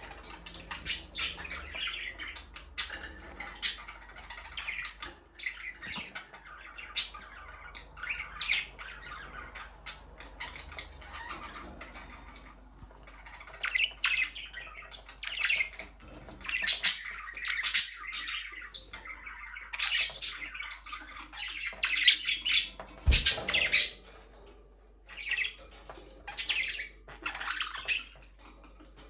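Budgerigars in an aviary chirping and squawking in short, irregular calls that overlap, with a single sharp knock about three quarters of the way through.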